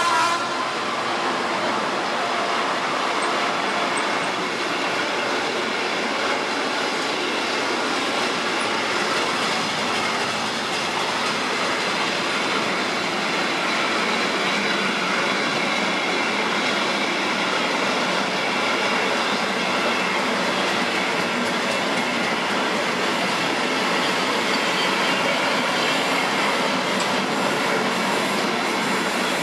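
Long rake of covered sliding-wall freight wagons rolling past close by: a steady, unbroken noise of wheels on rail.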